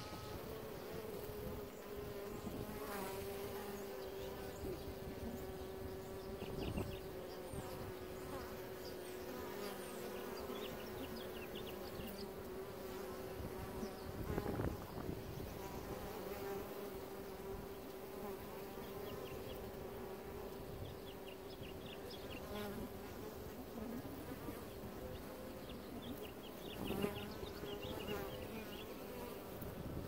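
Honey bees buzzing at a hive entrance: a steady hum of many wings, with single bees buzzing loudly past close by several times.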